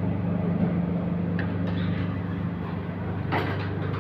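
Steady low hum of commercial kitchen machinery, with a brief clink of a utensil a little after three seconds.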